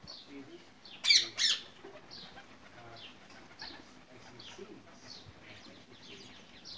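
Rose-ringed parakeets chattering: a string of short, high, falling calls about twice a second, with two loud, harsh squawks in quick succession about a second in.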